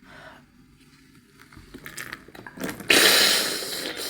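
Salt-water solution squirted hard from a syringe up a blocked nostril, a nasal rinse: after a few faint handling noises, a sudden loud hissing gush of liquid comes about three seconds in and fades over about a second.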